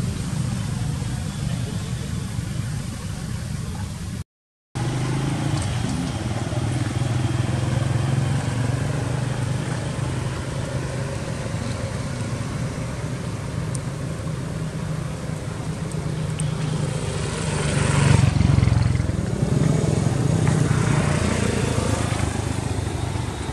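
Steady low engine rumble of road traffic, swelling louder about eighteen seconds in.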